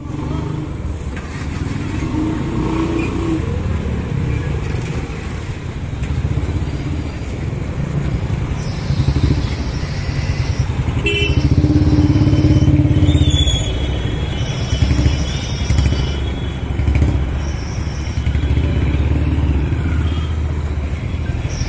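Motorcycles and small motor vehicles driving across a railway level crossing, engines running and passing close by in a steady low rumble that swells as they go past. A few short high-pitched tones sound in the second half.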